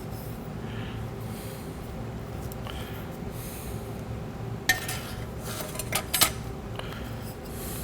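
Steel clutch plates and friction discs of a 4L60E low/reverse clutch pack clinking as they are stacked into the transmission case. There is a sharp metal clink about five seconds in and two more about a second later, over a steady low hum.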